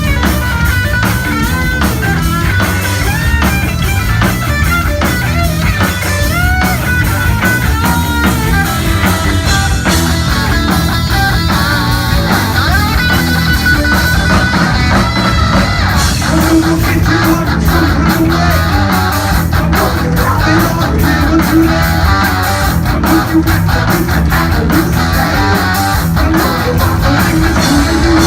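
A heavy metal band playing live, with loud electric guitar over bass and drums. In the first half the lead guitar plays bending, sliding notes.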